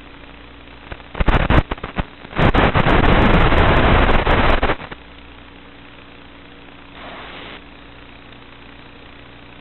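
Loud hiss and crackle of radio static in the goggles' audio from an analog FPV video link as the signal breaks up. It comes in crackling bursts about a second in, then a solid hiss until nearly five seconds, and a shorter, softer burst near the end. A steady low hum runs underneath.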